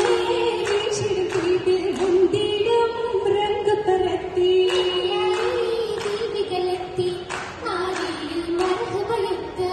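Oppana song: a group of girls singing one wavering melody in unison, with sharp hand claps keeping the rhythm every half second to second.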